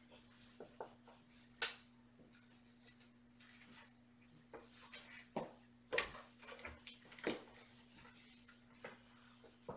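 A mother cat and her kitten playing on a laminate floor and a cardboard scratcher: a scatter of soft thumps, scuffs and scrapes from their paws and bodies, over a faint steady electrical hum.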